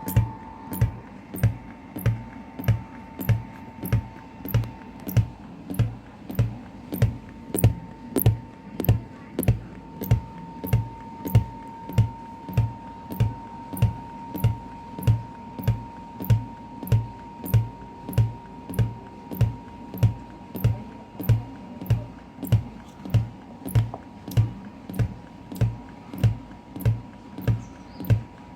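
Music with a steady electronic beat: a low kick-like thump with a sharp click a little under twice a second, over a held high tone.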